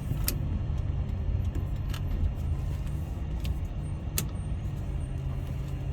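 Class C motorhome's engine running steadily, a low hum heard from inside the cab, with a few sharp clicks about a second or two apart.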